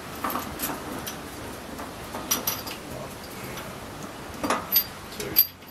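Steel 5C collet chuck being handled and offered up to the lathe's back plate: scattered light metal clicks and clinks, the sharpest ones near the end.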